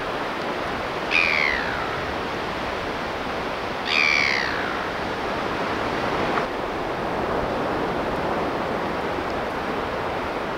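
Two gull calls, each a short cry falling in pitch, one about a second in and one about four seconds in, over the steady wash of surf.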